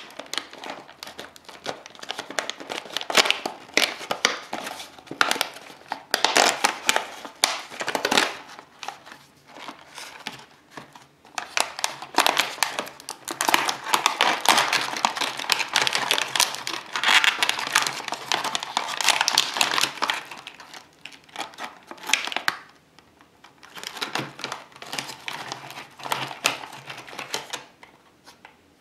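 Cardboard and paper rustling and tearing as a Calbee Jagariko snack box is torn open along its top and its inner wrapper is pulled apart. The noise comes in loud spells, with a short lull about three quarters through, and stops shortly before the end.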